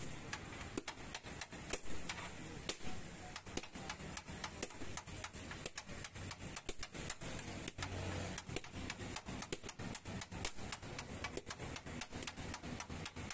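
Metal spatula chopping and scraping chicken on a flat steel griddle: rapid, irregular metallic clacking, several strikes a second.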